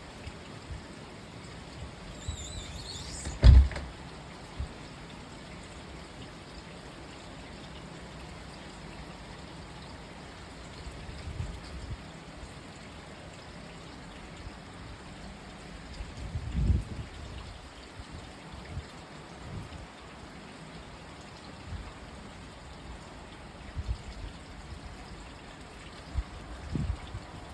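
Steady rain falling, with water trickling and pouring. A few low thumps break through, the loudest about three and a half seconds in.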